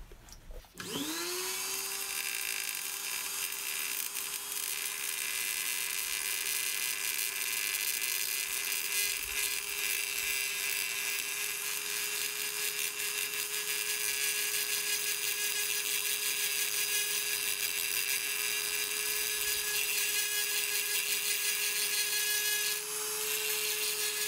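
Harbor Freight flex shaft rotary tool starting up about a second in and running at steady speed with a steady hum, while the stone it spins grinds with a hiss against a wet diamond flat lap plate: roughing the stone round for a cabochon. The grinding noise changes near the end.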